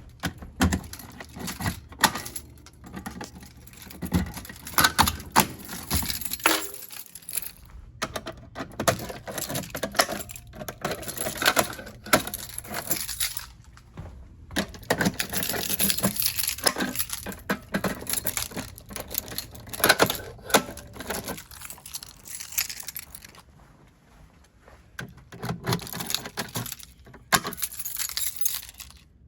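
A ring of keys jangling, with irregular clicks and clacks as a fire alarm pull station is unlocked and handled for silent testing.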